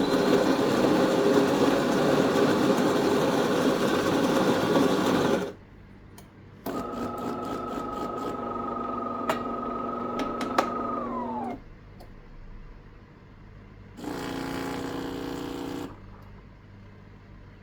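De'Longhi Autentica fully automatic espresso machine running through a cycle in three separate bursts of machine noise. The first is a loud, dense whirring of about five seconds. A steady motor whine with a buzz under it follows, its pitch dropping as it winds down near the middle. A short buzz comes near the end.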